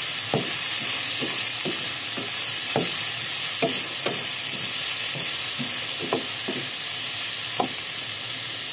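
Minced pork, diced carrots and green beans sizzling steadily in a nonstick wok while a wooden spatula stirs and turns them, scraping the pan in short irregular strokes, about one to two a second.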